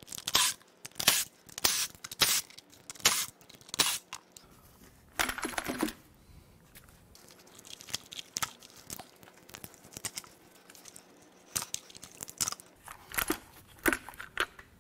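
Hands and a cordless power tool working on a 3.6L Pentastar V6's lower intake manifold and fuel rails during removal: a series of short clicks, clacks and rattles of plastic and metal parts, with a longer rattling burst about five seconds in.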